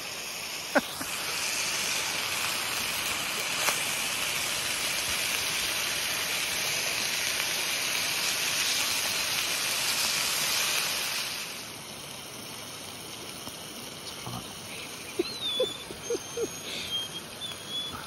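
Grouse breasts sizzling in oil in a camp frying pan, a steady hiss that cuts off abruptly about eleven seconds in, leaving the quieter rush of a brook.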